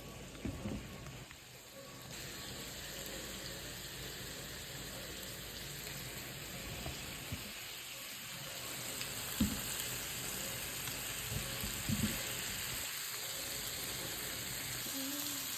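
Samgyupsal (sliced pork belly) sizzling steadily in a hot pan, with a couple of soft knocks about nine and a half and twelve seconds in.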